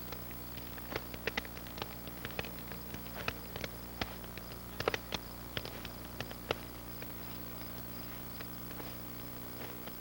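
Scattered light clicks and snaps at an uneven pace over a steady low hum, most of them in the first seven seconds.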